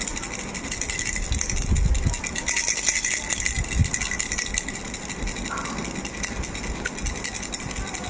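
Pink plastic starfish-shaped baby rattle shaken by hand: a continuous fast rattle of many small clicks, with a couple of low thumps from handling.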